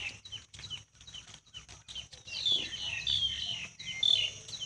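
Small birds chirping in short, quick high notes, thickening into a dense run of chirps in the second half. A steady high-pitched tone runs underneath, and a few sharp clicks come in the first two seconds.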